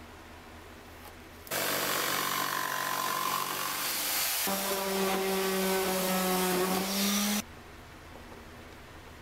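Electric jigsaw cutting through birch plywood, starting about a second and a half in and running in two stretches of about three seconds each, with a short break between them and a steady motor whine under the cutting.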